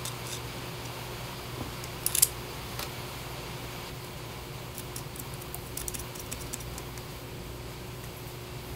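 Light clicks and ticks of 3D-printed plastic chassis parts and a small metal pin being handled and fitted together by hand. The sharpest clicks come about two seconds in, with a run of small ticks around five to six and a half seconds, over a steady low hum.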